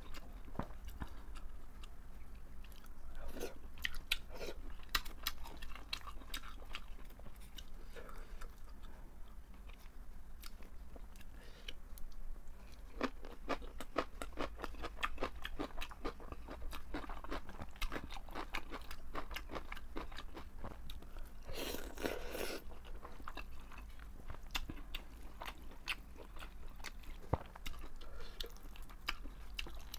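Close-miked chewing of crunchy cabbage kimchi and noodles: many small wet crunches and mouth clicks, with one louder, longer noisy rush a little past two-thirds of the way through.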